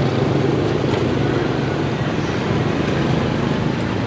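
Steady road traffic noise with a continuous low engine drone.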